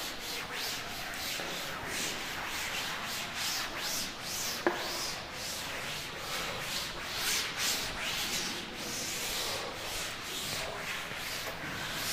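A cloth wiping chalk off a chalkboard in quick, repeated back-and-forth strokes, with a single brief knock about halfway through.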